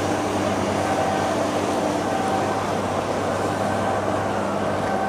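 Steady engine drone with a low hum under a noisy wash of sound, without a break.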